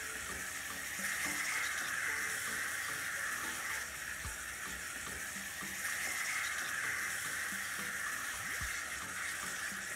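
Tomato curry sauce with boiled eggs sizzling steadily in a pan on a gas hob as it is stirred, with a few faint knocks.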